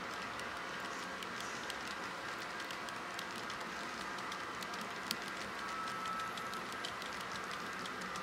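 S scale model freight train rolling along the layout's track: a steady rumble of wheels on rail, dotted with small clicks as the wheels pass rail joints, with one sharper click about five seconds in.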